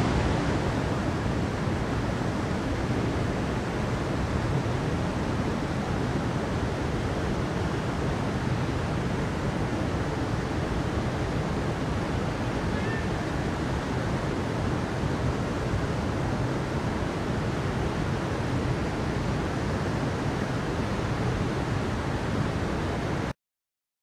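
Mountain stream rushing over rocks: a steady, even water noise that cuts off suddenly near the end.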